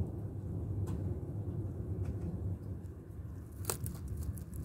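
Thunderstorm outdoor ambience: a steady low rumble with a few faint sharp clicks, the sharpest about three-quarters of the way through and a small cluster just after it.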